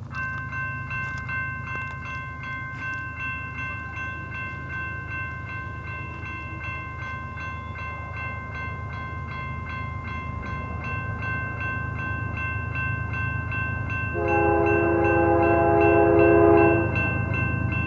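Grade-crossing warning bell starts ringing with rapid, even strokes over the low rumble of an approaching freight train, growing louder. About fourteen seconds in, the lead locomotive, a GE ES44DC, sounds one long horn blast of nearly three seconds.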